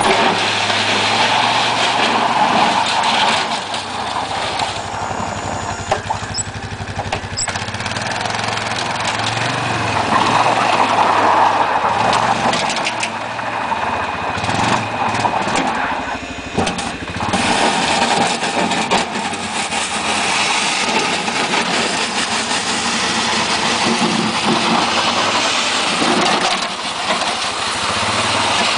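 Quad ATV engine running under load as it drives a front loader bucket through snow, the engine note swelling and easing as the throttle changes.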